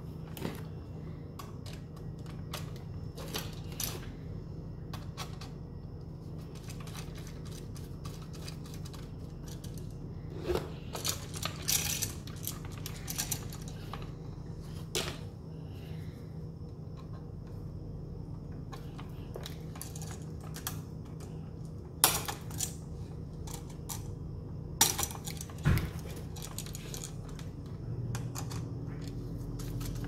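Scattered light metallic clicks and taps from wiring a 3-way light switch by hand: copper wires being bent and twisted with pliers, the switch's metal strap and screws knocking, and a screwdriver on a terminal screw. A few sharper clicks come in the second half, over a steady low hum.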